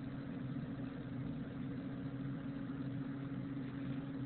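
A steady low hum of background noise, with no speech.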